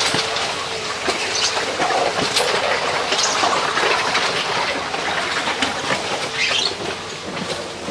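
Arrastra ore mill running: its metal arm frame turns and drags heavy stones on chains around the pit floor. The sound is continuous irregular clanking with a few metallic squeals, the clearest near the end, over a steady hum.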